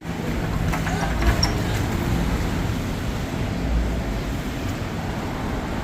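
Steady low rumble of road traffic and running vehicle engines, with no distinct event standing out.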